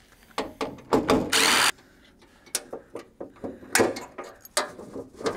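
Cordless drill spinning in a brief burst about a second in, backing out the bolts of a sickle bar mower's drive-belt cover, followed by scattered clicks and knocks as the metal cover is handled and lifted off.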